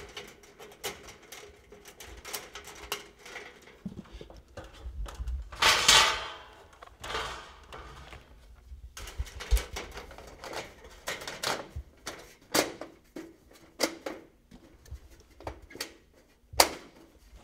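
Irregular clicks, knocks and clatter of hands working on a light fixture's sheet-metal housing and cover plate, with a louder, longer metallic rattle about six seconds in.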